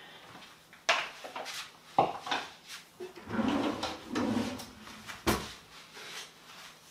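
A kitchen drawer being opened and shut and a wooden spoon taken from it: scattered knocks and a rummaging clatter, with the loudest knock about five seconds in.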